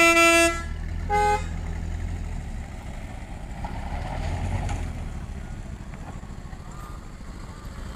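Vehicle horns: a long loud blast that cuts off about half a second in, then a short beep of a different pitch about a second in. Under them is the steady low rumble of vehicle engines running.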